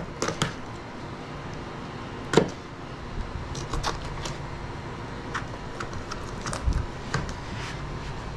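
Knife cutting the meat of an alligator gar away from the bone: scattered small clicks and scrapes, with one louder knock about two and a half seconds in.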